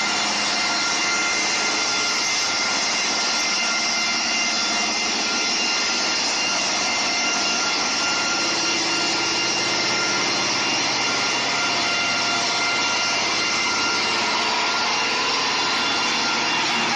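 Wood cross-cut saw machine running: a loud, steady machine noise with a few high whining tones held over it, its level unchanging.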